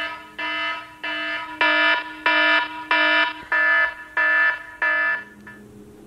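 Phone alarm beeping: about nine short buzzy beeps, roughly two a second, getting louder after the first few and stopping shortly before the end. It is the alarm that the weight-sensing cookie platter triggers when a cookie is taken.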